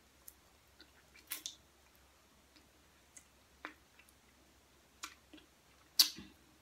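Mouth sounds of a person eating with her fingers: scattered wet clicks and smacks of chewing and lips on fingers, with a louder click about six seconds in.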